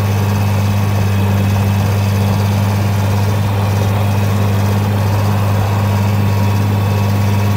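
Tractor engine running steadily while pulling a field cultivator, a constant low hum.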